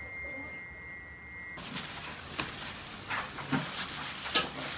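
A steady high-pitched tone that cuts off suddenly about a second and a half in, followed by scattered soft taps and rustling of plastic-gloved hands handling and laying out thin samosa dough wrappers.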